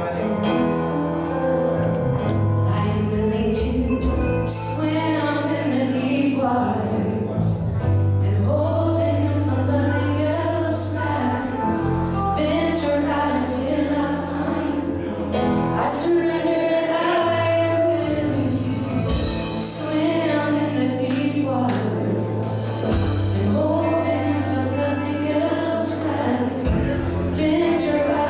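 Live worship band playing a slow song: a woman singing the lead over bass guitar, electric guitar, keyboard and electronic drums, with regular cymbal hits.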